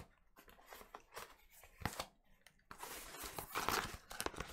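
Scissors cutting through a cardboard record mailer: a few scattered snips and clicks, then, from a little under three seconds in, a louder continuous stretch of cardboard being cut and pulled away.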